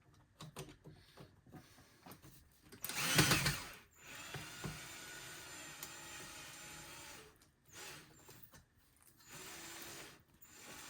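Handheld power drill running in short bursts to back screws out of a small melting furnace's casing: a loud run about three seconds in, a steadier whir lasting about three seconds, then a shorter run near the end.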